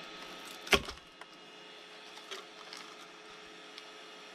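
A 3D-printed PVB filament bust breaks loose from the printer's build plate with one sharp crack. A few faint clicks and handling knocks follow as it is lifted and turned over, over a low steady hum.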